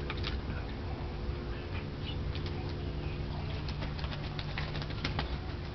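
Rouen duck dabbling its bill in a plastic bowl of water: a run of quick splashing clicks and patters that thickens about two seconds in.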